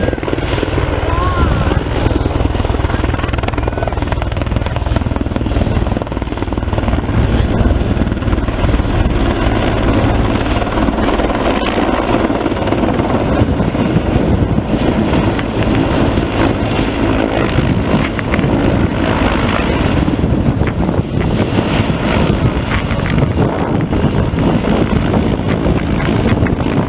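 Sikorsky CH-53 heavy-lift helicopter flying a display pass overhead: loud, steady rotor and turbine noise with a fast, even beat from its six-blade main rotor.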